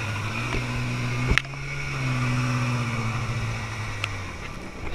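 Small jet boat's engine running while underway, over water and wind noise, with one sharp knock about a second and a half in. The engine note rises slightly about two seconds in, then dies away a little after four seconds, leaving water noise and a couple of clicks.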